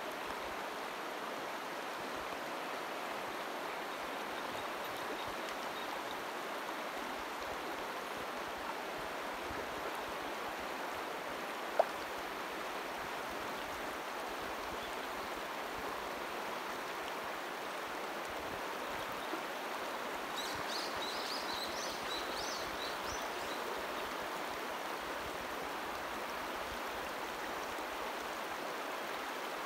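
River water rushing steadily over a shallow riffle, an even hiss of flowing water. A single sharp click sounds about twelve seconds in, and a brief run of high chirps a little past the middle.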